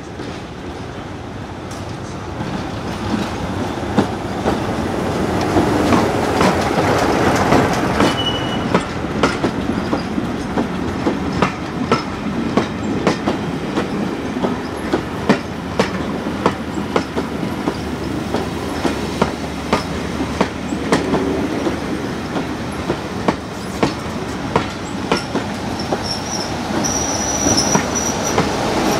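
Diesel-hauled heritage train running on jointed track. It grows louder over the first few seconds, then the wheels click over the rail joints in a repeated clatter. A faint high wheel squeal comes in near the end.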